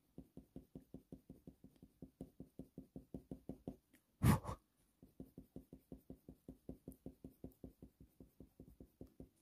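Faber-Castell Polychromos colour pencil shading on hot-press watercolour paper: quick, even back-and-forth scratching strokes, about five or six a second. They pause once, a little under halfway through, for a single louder bump, then resume.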